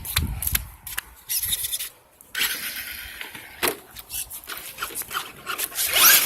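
Electric motor of an RC car whining upward as it speeds off near the end, over a steady rushing hiss, with scattered clicks and knocks before it.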